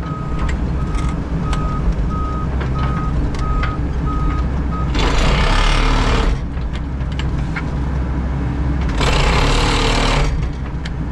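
Hydraulic excavator's diesel engine running steadily, heard from inside the cab, with two surges of hiss-like noise as the hydraulics work the arm. A backup alarm beeps steadily for about the first five seconds, then stops.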